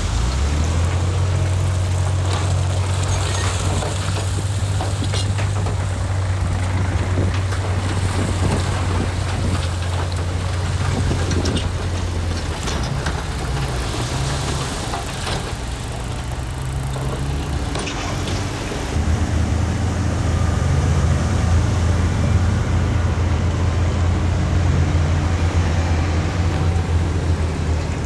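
The diesel engine of a heavy earthmoving machine running as a steady low drone, with a hiss and scattered clicks over it. The drone weakens a little before halfway through and comes back stronger about two-thirds of the way in.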